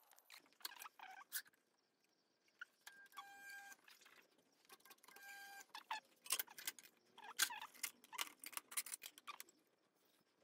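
Aluminium sheet and steel blocks being handled and set into a Magnabend sheet-metal folder: a run of light metallic clinks, taps and knocks, with two short bursts of rapid, buzzy ticking in the first half.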